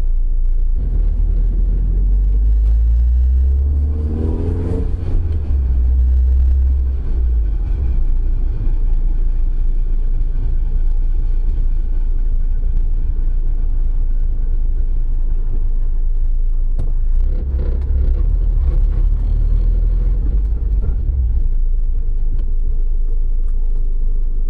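Car engine running under a heavy low rumble, revving up briefly about four seconds in and again more weakly around seventeen to twenty seconds.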